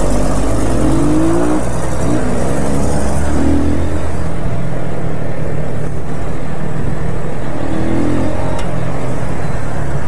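Motorcycle engine running on the road, with its pitch rising and falling briefly a few times, and wind noise on the microphone.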